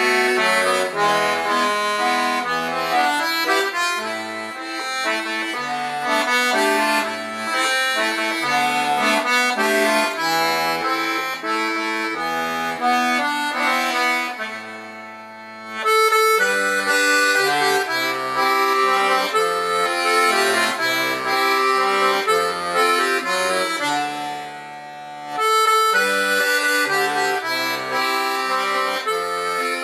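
Instrumental background music: a melody over a bass line, fading briefly between phrases twice.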